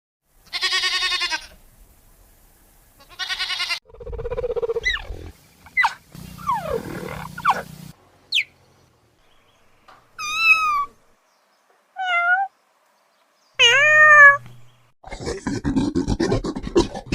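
A series of different animal calls, one short clip after another with silent gaps between: several pitched cries of a second or less, some wavering or sliding in pitch, then a rapid, rough run of repeated sounds near the end.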